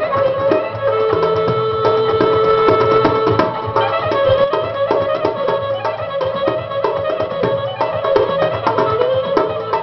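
Albanian folk music played live: a melody instrument with a wavering vibrato line over a steady goblet-drum beat.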